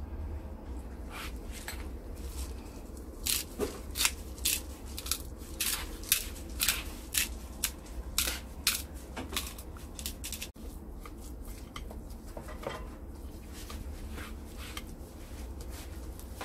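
Salt being worked over raw black cod steaks by a gloved hand: a run of short, crisp crunching scrapes, irregular and roughly two a second, from about three seconds in to about nine seconds in, with a few fainter ones a little later.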